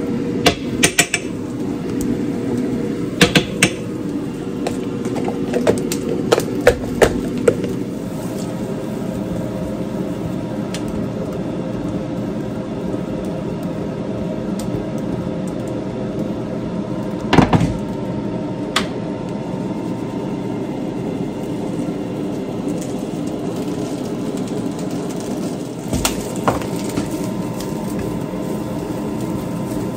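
Kitchen background: a steady hum with a faint tone, broken by scattered knocks and clatters of pans and utensils being handled.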